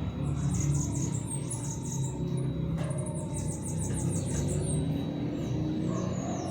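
Small birds chirping in rapid high trills and short falling whistles, in several bouts, over a steady low hum.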